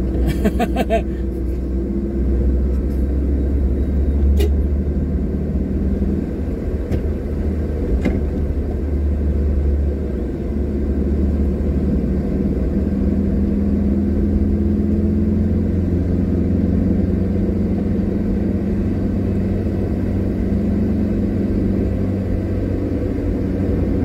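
Steady rumble of a car driving along a road, heard from inside the cabin: engine and tyre noise, with a low hum that drifts a little in pitch as the speed changes.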